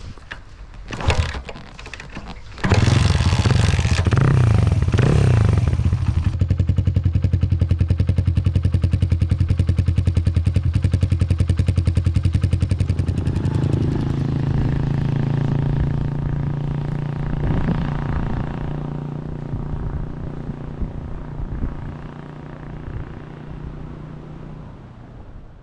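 Small 125cc-class motorcycle engine starting after a couple of clicks about two and a half seconds in, then running steadily. Its pitch shifts slightly about halfway through and it slowly fades toward the end.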